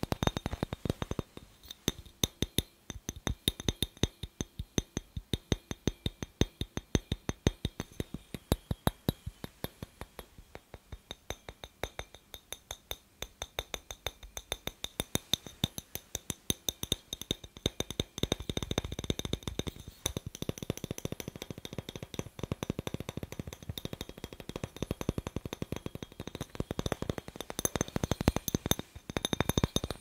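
Fingernails tapping fast on a clear glass light bulb close to the microphone: a rapid stream of sharp, clinking taps with a faint glassy ring. The taps grow denser, almost continuous, a little past the middle.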